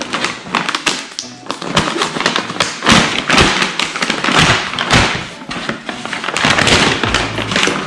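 Brown kraft-paper mailer bag crinkling and rustling as it is handled, in dense, irregular crackles.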